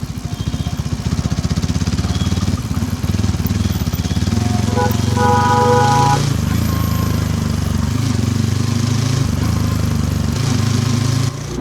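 Hero Xtreme 160R 4V's single-cylinder engine running under way, its note stepping up and down in pitch a few times. About five seconds in, a vehicle horn sounds for about a second and a half.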